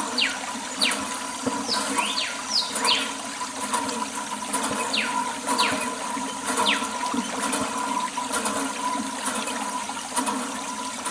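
Water running and splashing steadily, with short high falling whistles heard several times over it.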